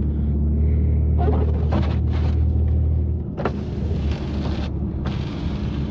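BMW F80 M3's twin-turbo straight-six running at low cruising revs, a steady low drone through the open-valve exhaust, easing off about three seconds in. Several stretches of hiss sound over it, from the tyres through snow and slush.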